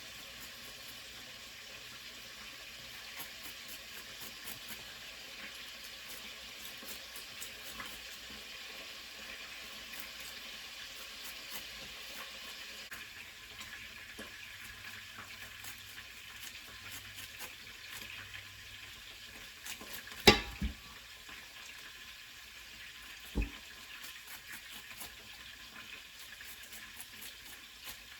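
Meatballs frying in a pan with a steady crackling sizzle. Two sharp knocks, the first loud, come about three seconds apart past the middle, as from a utensil striking the pan.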